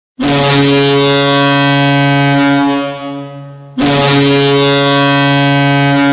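Boston Bruins goal horn blowing twice: a low steady horn blast of about two and a half seconds that fades away, then a second blast of the same pitch starting near the four-second mark.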